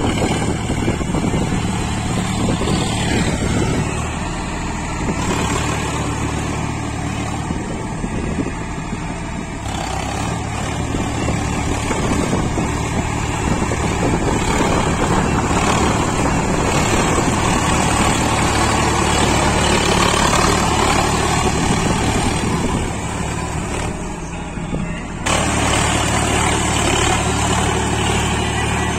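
Sonalika 50 RX Sikandar tractor's diesel engine running steadily under load while driving a Shaktiman rotavator through flooded paddy mud. The sound shifts abruptly in level twice, about a third of the way in and near the end.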